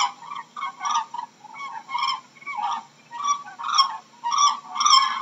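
Cranes calling: a rapid, irregular series of short, loud calls, about two a second.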